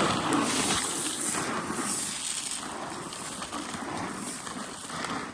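Dry shelled corn poured out of a bag and scattering over the ground: a steady hiss of kernels that slowly fades toward the end.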